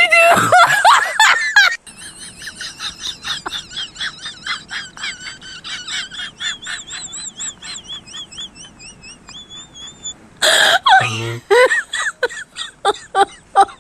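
Young kittens mewing in loud, high, wavering cries for the first two seconds and again from about ten seconds in, with a fainter run of rapid high chirps, about four a second, in between.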